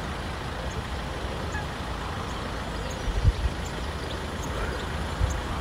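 Steady distant road-traffic rumble and hiss, with a brief gust of wind on the microphone about three seconds in.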